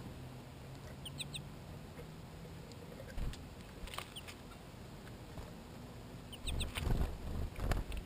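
Small songbirds at a plastic seed feeder: a few short, high chirps, scattered ticks and taps of beaks on seed and plastic, and louder low thumps near the end as a bird flaps in to land.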